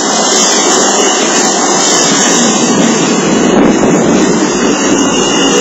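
Keihan electric commuter train rolling past close by along the platform: a loud, steady rush of wheels on rail and running gear.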